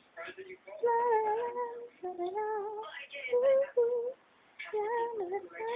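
A woman's voice singing a melody in held notes, in short phrases with brief pauses between them.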